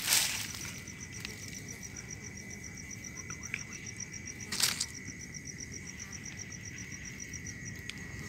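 Crickets chirping at night in rapid, even pulses, about eight a second, over a steady high tone. Two brief rustling scuffs break in, one at the start and one about four and a half seconds in.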